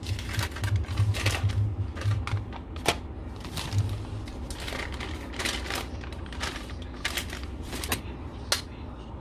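Plastic film packets of cottage cheese crinkling and rustling as they are squeezed out into a plastic bowl, with irregular sharp clicks and taps, over a low hum.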